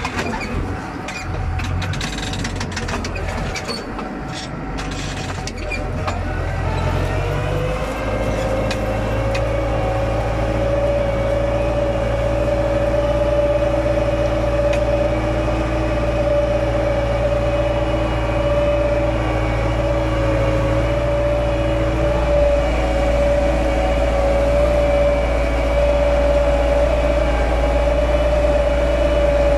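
Tümosan 8280 tractor engine heard from inside the cab, with knocks and rattles for the first several seconds. About seven seconds in the engine note rises and settles into a steady drone under load as the tractor pulls the four-furrow reversible plough through the soil.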